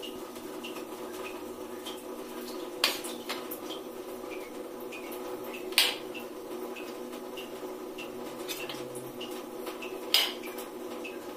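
Steel spoon clinking sharply against a steel plate three times as it scoops mashed pea filling, with fainter taps between, over a steady low hum.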